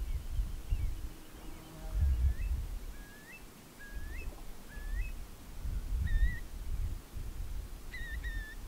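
Wind buffeting the microphone in uneven gusts, with a bird calling over it: four short rising whistles a little under a second apart, then a few slurred whistled notes near the end.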